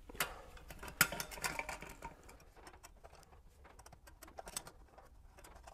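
JM3 oil filter wrench clicking and rattling as it is worked around a spin-on oil filter that has broken loose, a run of light clicks with louder ones about a quarter second and a second in.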